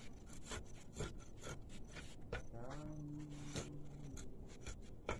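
Handling noise from a handheld phone: irregular rubbing and clicking on the microphone. A low, steady tone is heard for about a second and a half in the middle.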